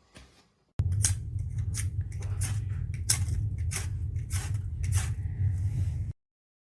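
A steel striker scraped again and again down a ferrocerium fire-steel rod: about a dozen quick scrapes over a steady low hum. It starts suddenly about a second in and cuts off abruptly near the end.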